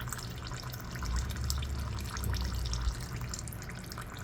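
Old engine oil trickling and dripping from a Champion dual-fuel generator's drain hose into a drain pan, over a steady low hum.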